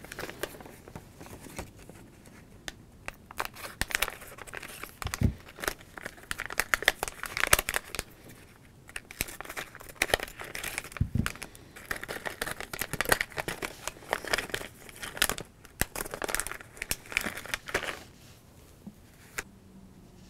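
Crinkling of a sealed plastic Lego Minifigures blind bag being handled and cut open with scissors, in quick irregular bursts that die down near the end.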